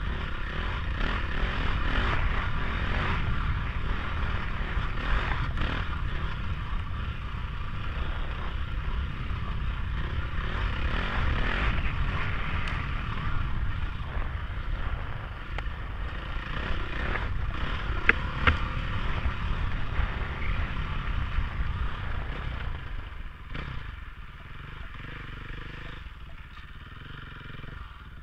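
KTM 500 dirt bike's single-cylinder four-stroke engine running under load on a rough dirt trail, with clatter from the bike over the ground. Two sharp knocks come about eighteen seconds in, and over the last few seconds the engine settles to a quieter, slower run as the bike slows.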